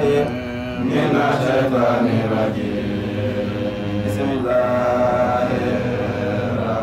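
Men's voices chanting an Islamic religious recitation together, in long held notes.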